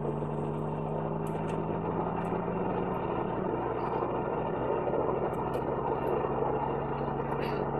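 Dodge Viper's V10 engine and tyre noise heard from inside the cabin while driving along a road. A steady engine hum with a clear pitch fades about three seconds in, leaving an even drone of engine and road noise.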